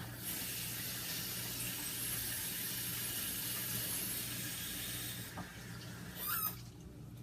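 Kitchen sink tap running in a steady hiss while hands are washed, shut off about five seconds in; a short wavering squeak follows shortly after.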